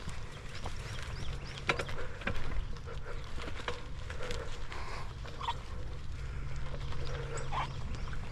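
Bike jolting along a rough dirt trail: irregular knocks and rattles over a steady low rumble of tyres and wind.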